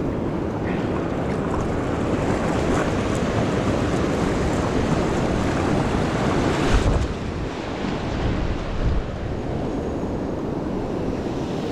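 Ocean surf washing steadily on the beach, with wind buffeting the microphone and one heavier gust blast about seven seconds in.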